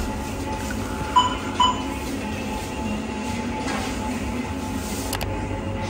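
Steady rushing rumble of a windy street, with two short bright clinks a little over a second in.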